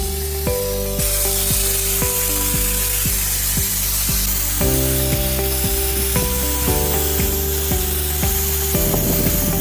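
Lematec AS118-2C sandblaster gun blasting, a steady hiss of compressed air and abrasive grit that starts about a second in, under background music with a steady beat.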